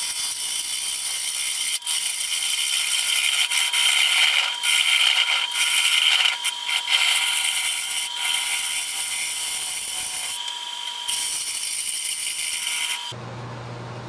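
A bowl gouge makes a finishing cut inside a spinning pecan bowl on a wood lathe, a steady hissing scrape of the tool on very hard wood. The cut stops abruptly about a second before the end.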